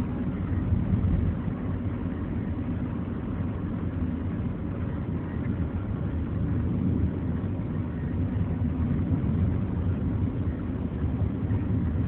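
Steady road and engine noise of a car being driven, heard from inside the cabin: an even low-pitched hum with no breaks.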